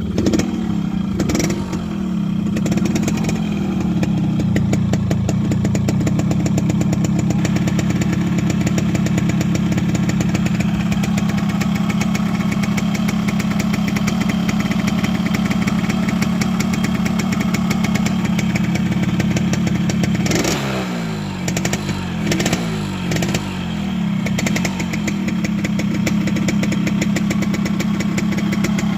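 Yamaha RX King's two-stroke single-cylinder engine idling steadily just after starting, then blipped with a few quick throttle revs about 20 seconds in before settling back to idle. It runs without the 'ngorok' snoring rattle.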